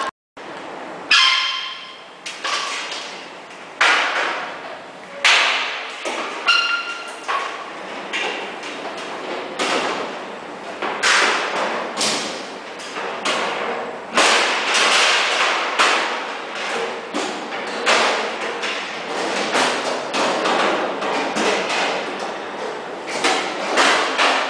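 Steel server-cabinet top plates and frame parts being handled and fitted into place: a long run of irregular metal thuds and clanks, a few of them ringing briefly.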